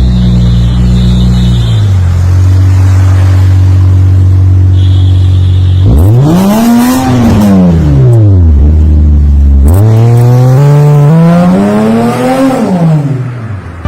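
Toyota sedan's engine and exhaust idling, then revved twice: each time the pitch climbs quickly and falls back to idle.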